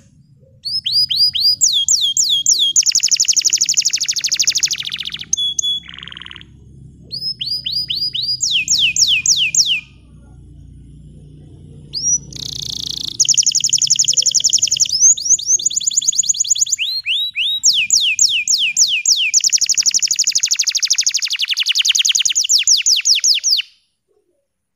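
Bottle-green domestic canary singing loudly: long, fast trills of repeated sweeping whistled notes in several phrases, with short pauses between them. The song stops abruptly near the end.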